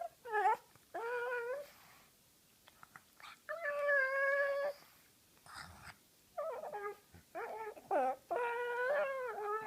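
Pug making whining, moaning calls while her face is being handled: a few short calls that bend down in pitch, one long steady call about three and a half seconds in, and a quick run of calls ending in a longer one near the end.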